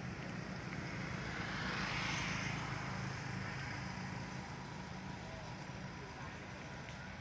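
A steady low engine drone, with a rushing sound swelling about two seconds in, slowly fading towards the end.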